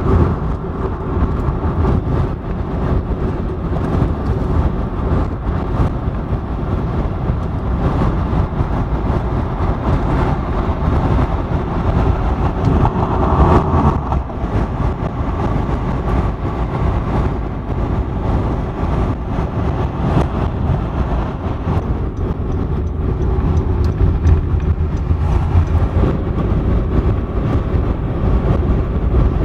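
A car driving, with a steady low rumble of road and engine noise that holds even throughout.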